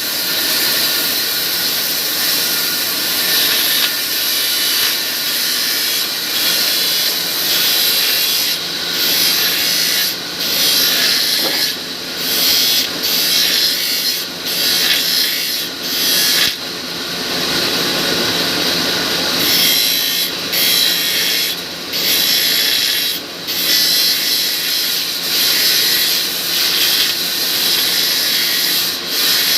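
Sawmill machinery running with a steady hum under a continuous rasping, sawing noise. The noise is broken by short dips every second or two.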